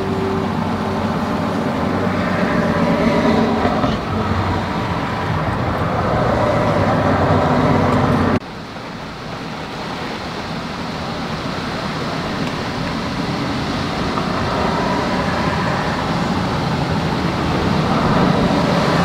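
Storm wind and rain on a car, heard from inside the cabin as a steady rushing noise over a low hum, growing louder; it drops suddenly about eight seconds in, then builds again.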